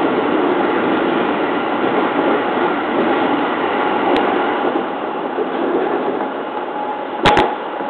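JR East 209 series electric train running, heard from the cab: a steady rumble of wheels on rail, a little louder inside a tunnel and easing after the train comes out about four seconds in. Near the end the wheels clack twice in quick succession over a rail joint.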